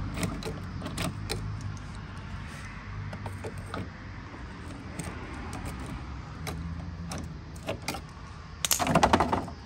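Ratchet wrench with a 10 mm socket loosening a bolt: scattered ratchet clicks, then a fast, loud run of clicking near the end.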